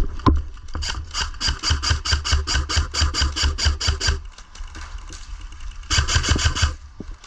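Airsoft gun firing a long rapid burst of evenly spaced shots for about three seconds, then a second, shorter burst near the end.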